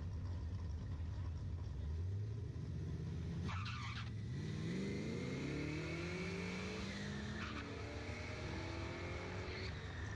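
Two drag-racing street cars, one a blue Ford Mustang, launching from the start line. Their engines drone low while staged, then a sudden change about three and a half seconds in, after which the engine notes climb steadily in pitch as the cars accelerate away down the strip. A dip and brief crack near the middle of the run mark a gear change.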